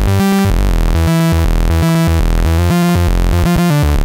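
Synth lead (Logic's 'Super Fat Moog' patch) played through Logic's arpeggiator. A single held key is turned into a rapid run of sixteenth notes going up and down over three octaves, with strong low notes underneath.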